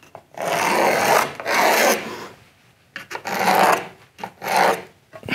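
Pencil drawn along the edge of a spirit level across a plastered wall, scratching in about four strokes, the first and longest lasting over a second, while a guide line is marked.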